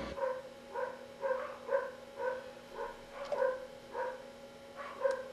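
Faint short calls repeated about twice a second, like an animal barking, over a steady low hum.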